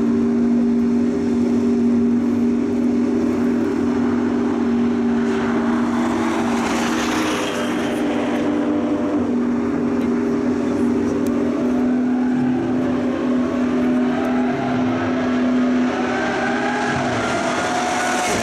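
Luxury car engines running: a steady engine drone throughout, with another engine's pitch rising and falling in the second half as it revs and drives past.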